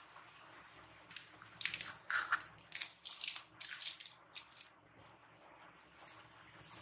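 Masking tape being peeled off the border of a paper sheet: a quick series of short rips starting about a second and a half in, then one or two more near the end.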